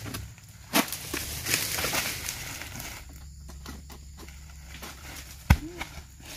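Oil palm being harvested with a long-handled pole: the blade knocking and fronds rustling in the crown, then about five and a half seconds in a single heavy thud as a cut fresh fruit bunch drops to the ground.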